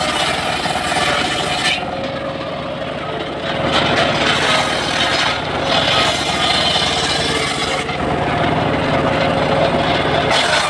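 Homemade circular sawmill ripping a mahogany log: the large blade's cutting noise rises in several surges as it bites into the wood, then eases between them, over the steady sound of the machine running.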